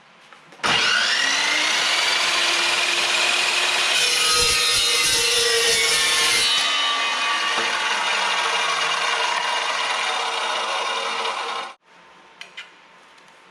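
Chop saw starting with a rising whine and cutting through a steel piece held on edge, running steadily for about eleven seconds, then stopping abruptly.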